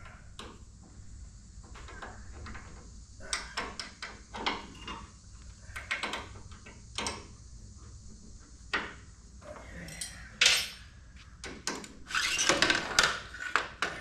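Hand tools clinking and knocking on the steel of a Wood-Mizer LT35 sawmill head as it is adjusted: scattered sharp metal clicks, with one louder knock past the middle and a short rattling clatter near the end.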